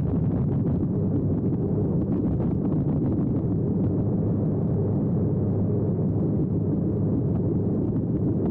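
Calidus autogyro's engine and pusher propeller making a steady, unbroken drone in flight, with wind rushing over the outside-mounted microphone.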